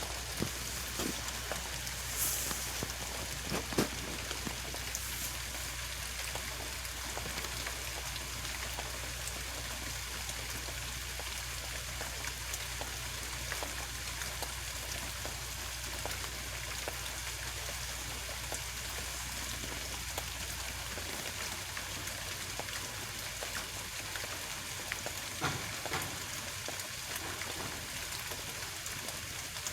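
Steady hiss of rain falling, over a low hum that stops about two-thirds of the way in, with a few faint knocks near the start and again near the end.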